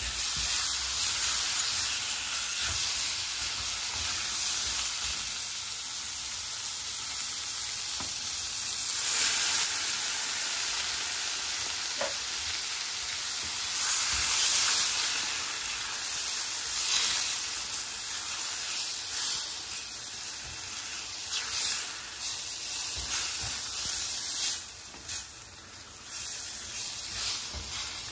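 Chicken tikka pieces sizzling in oil in a hot black iron pan while a spatula stirs and scrapes them, the sizzle swelling louder a couple of times. Once tomato purée is in the pan the frying turns softer and patchier.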